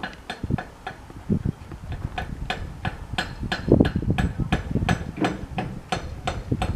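A steady run of sharp, ringing metallic clinks, about three a second, like metal being struck over and over, with low rumbles underneath now and then.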